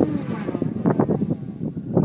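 Wind buffeting the microphone in irregular gusts. Underneath, the faint whine of an electric RC aerobatic plane's brushless motor and propeller, rising and falling in pitch as it flies.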